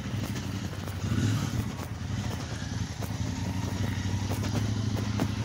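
Motorcycle engine running steadily as a low drone, without revving.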